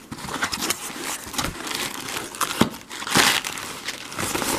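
Cardboard box flaps being pulled open and packing material inside crinkling and rustling, with a louder rustle a little past three seconds in.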